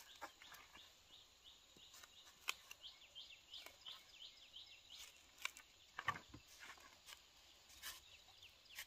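Faint scattered knocks and cuts as a machete chops banana hands off the green bunch stalk, the two loudest about two and a half and six seconds in. Behind them, a bird chirps steadily in short falling notes, about three a second.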